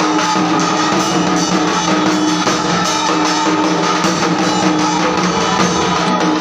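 Dhak, the large Bengali barrel drum, played fast and loud, a dense run of beats with a few steady ringing tones over it.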